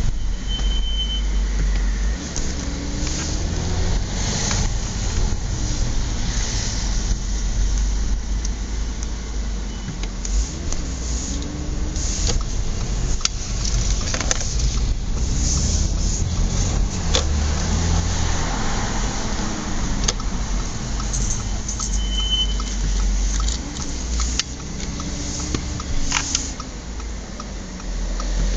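Audi S4 B8 driving with a steady low engine and road rumble and a few knocks. Twice, briefly, a thin high-pitched brake squeal: once near the start and once about three-quarters of the way through.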